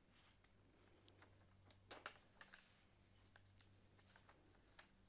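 Faint crackling and popping of butter and oil heating in a nonstick pot, with a few louder pops about two seconds in.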